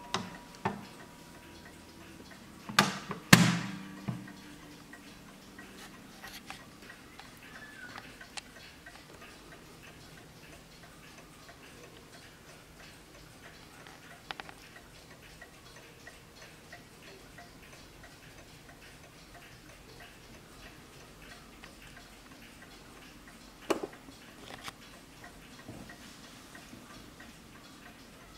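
Junghans mantel clock's movement ticking steadily and faintly. Near the start its glass front door is swung shut, giving a couple of loud knocks about three seconds in, with a brief ringing of the wooden case; a lighter knock follows near the end.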